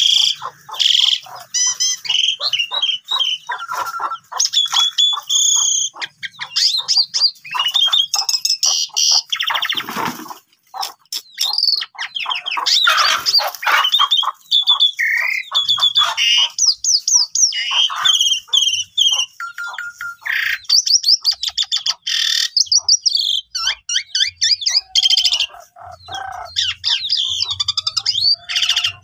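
A caged pied starling (jalak suren) singing a long, varied song of whistles, chirps and fast clicking rattles, with only brief pauses.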